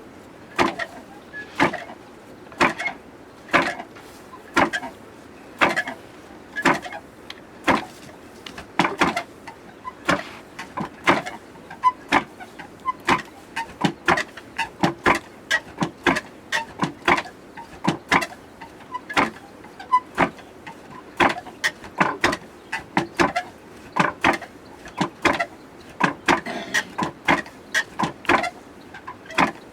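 Repeated sharp knocks from barley being milled by traditional hand methods, about one a second at first and coming faster, nearly two a second, in the second half.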